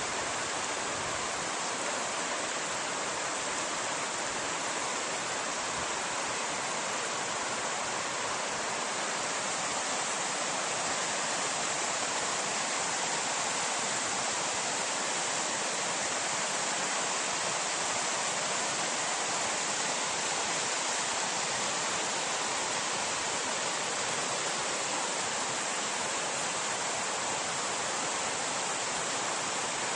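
A small rocky river running over rapids: a steady rush of water.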